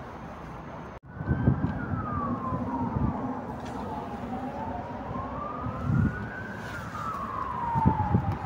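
A siren wailing in a slow rise and fall over several seconds, starting about a second in, over low rustling and handling noise.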